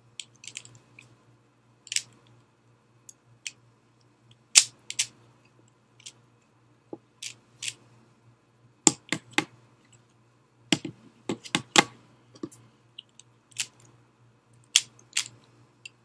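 Plastic clicking and clacking of a DaYan ZhanChi 3x3 speedcube being turned one-handed: irregular sharp clicks, sometimes several in quick succession, as the layers snap round. A faint steady low hum runs underneath.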